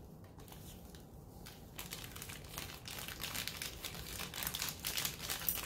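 Plastic packet from a DIY candy kit crinkling as it is handled and squeezed, a rapid crackle that starts about two seconds in and carries on; before that only a few faint ticks.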